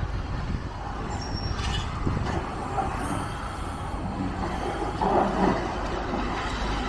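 Steady low rumble of heavy engines, with a louder clatter about five seconds in.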